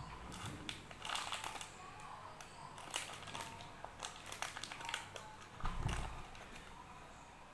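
Thin clear plastic wrapper crinkling and crackling in a quick irregular run as fingers handle and pull open the bagged toy from a Dairy Milk Lickables tub, with a low handling thump about six seconds in.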